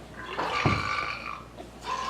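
Recorded belch sounds played from an iPhone speaker by a shake-to-belch joke app: one belch lasting most of a second starts about a third of a second in, and another starts near the end.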